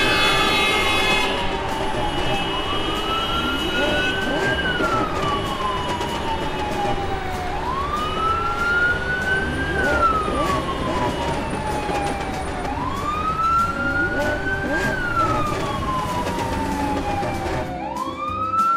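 Emergency-vehicle siren wailing, each cycle rising quickly and falling slowly, repeating about every five seconds over a busy lower background.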